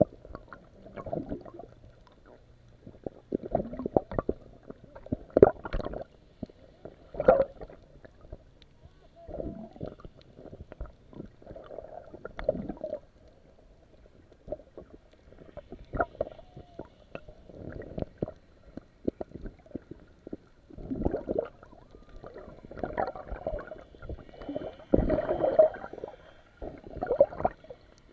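Muffled underwater noise picked up by a submerged camera: irregular gurgling water movement with occasional sharp knocks, all dull and bass-heavy.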